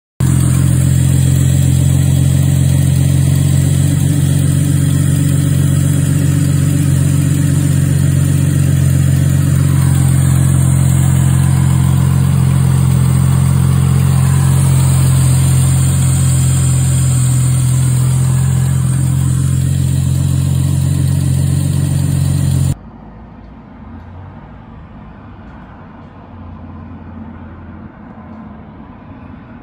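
Toyota 1JZ straight-six engine running steadily at idle, close up in the engine bay. About 23 seconds in it drops abruptly to a much quieter steady running sound.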